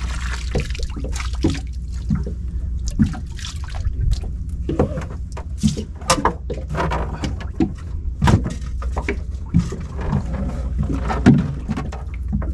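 Sea water splashing and dripping around a small boat as a line of shell octopus traps is hauled in, with many irregular knocks and splashes over a steady low rumble.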